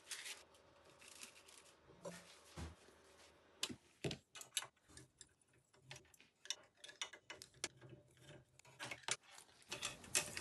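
Faint, irregular clicks and light taps of hand work on a 3D printer: a hex screwdriver undoing the extruder's mounting screws and small parts being handled.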